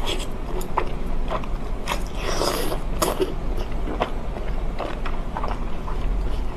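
Close-miked biting and chewing of food, with irregular crisp clicks and a louder crunch about two and a half seconds in.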